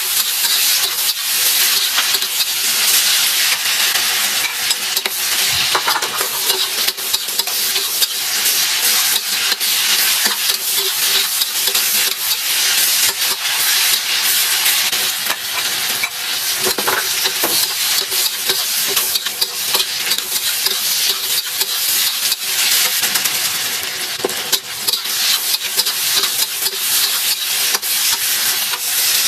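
Food stir-frying in a hot pan: a steady loud sizzle, with a spatula stirring and scraping through it in frequent short clicks.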